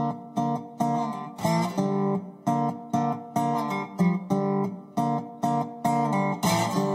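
Background music: an acoustic guitar strumming chords in a steady rhythm, about two to three strokes a second, with no singing. Near the end it goes into a quicker strum and rings on a held chord.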